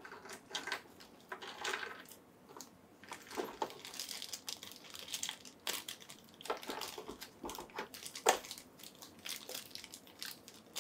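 Toy packaging being handled and pulled at: irregular crinkling, rustling and clicks, with one sharper knock about eight seconds in.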